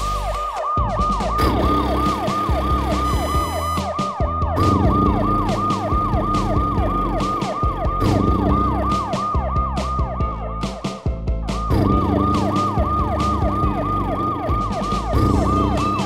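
A siren sweeping rapidly up and down, about three sweeps a second, over background music with a steady beat; the siren breaks off briefly a little past the middle.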